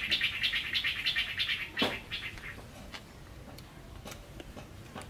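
A bird chattering in a quick even run of chirps, about eight a second, that fades out after about two and a half seconds. A sharp click comes just before two seconds in, then a few light clicks of a spoon against a plate.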